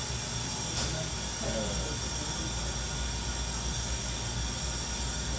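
Steady room noise of a fast-food restaurant dining room: a low hum with a high steady whine from the restaurant's equipment. A light click comes about a second in, and a faint voice is heard briefly.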